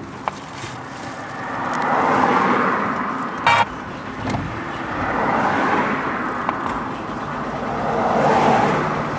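Car and traffic noise on the road, swelling and fading three times, with a short horn toot about three and a half seconds in.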